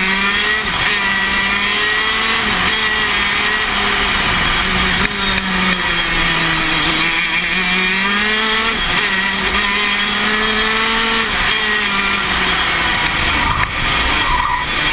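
Tony Kart KZ125 shifter kart's 125 cc two-stroke single-cylinder engine running hard on a lap, heard from the driver's seat, its pitch rising and falling over and over as it accelerates out of corners and comes off the throttle into them.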